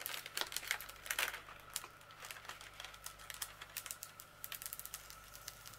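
Clear plastic cover film on a sticky diamond painting canvas crackling as it is lifted off the glue and smoothed back down. A quick run of small clicks and crinkles thins out after about a second and a half.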